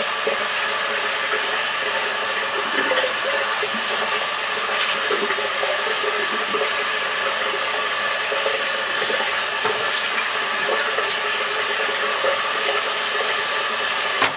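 Water running steadily from a bathroom tap into the sink while a face is rinsed: an even, unbroken hiss.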